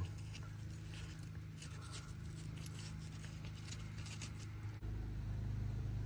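Faint clicks and light scrapes of a gloved hand handling an engine coil pack and its wiring connector, over a steady low hum that gets a little louder near the end.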